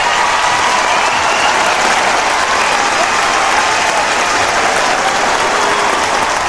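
Large crowd applauding steadily, a dense, even clapping with scattered cheers and shouts mixed in.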